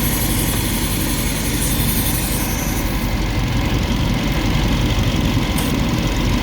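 Mercedes-AMG G63's 4.0-litre twin-turbo V8 idling steadily, with a high hiss on top that fades about halfway through. The extra noise comes from the vacuum pump, whose vacuum line was left disconnected after the engine repair.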